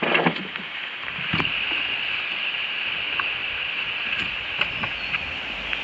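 Steady hiss of rain falling on the water and boat, with a few light knocks and taps, the loudest right at the start.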